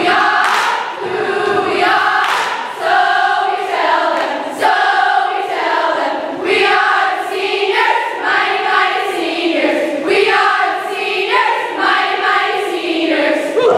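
A group of female voices singing a melody together like a choir, with long held notes that move up and down.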